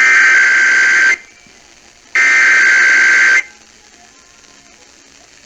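Emergency Alert System SAME header: two loud one-second bursts of digital data tones about a second apart, the second and third of the three header bursts. They announce a Required Weekly Test.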